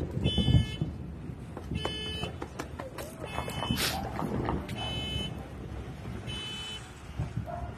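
A high electronic alarm beeping in short blasts about every one and a half seconds, over scattered firework pops and a low rumble, with a short hiss about four seconds in.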